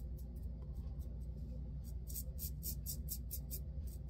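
Timeless 0.68 titanium safety razor scraping through stubble and lather in short, quick strokes, about five a second, louder from about halfway in.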